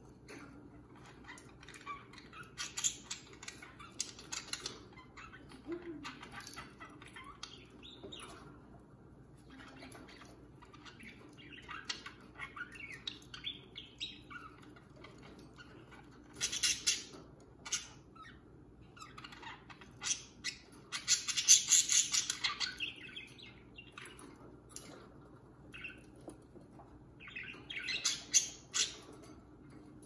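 Pet budgerigars in a cage chirping and fluttering in irregular bursts, the loudest lasting about two seconds about two-thirds of the way through.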